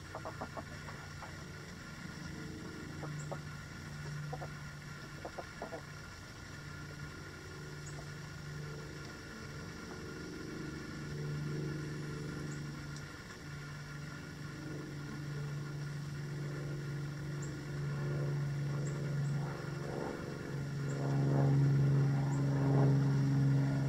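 Low, steady motor-vehicle engine hum that grows louder toward the end, with a few faint clicks in the first several seconds.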